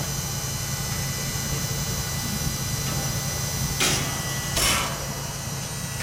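HWH hydraulic leveling jacks on a Class C motorhome pressing down onto concrete: a steady mechanical drone of the jack system running with the Ford 6.8 L V10 engine idling. Two short noisy bursts come a little under a second apart, near four seconds in.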